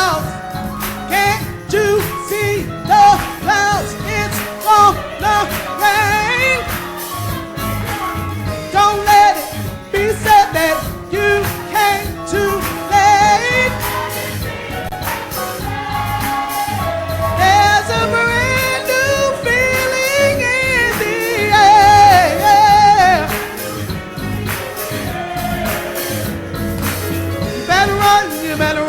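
Gospel singing with vibrato-rich voices over instrumental backing and a steady bass line.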